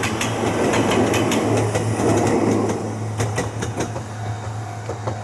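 Ohmi Railway 800-series electric train running away along the line: a steady low hum with a quick, uneven series of wheel clicks over the rail joints, fading over the last two seconds as it recedes.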